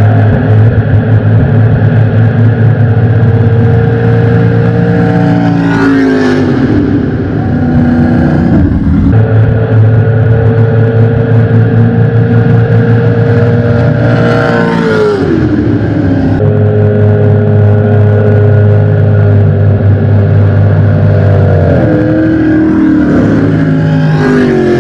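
Racing jet boat engines running loud and steady, their pitch falling in sweeps three times as the boats race and pass.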